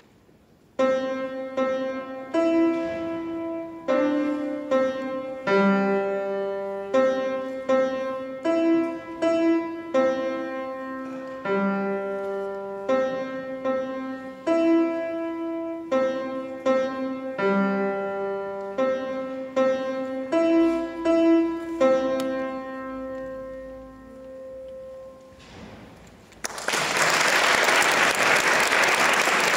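Steinway grand piano played by a child: a short piece with a repeated middle-register melody over lower notes, starting about a second in and closing with a chord that fades out. Audience applause breaks out near the end.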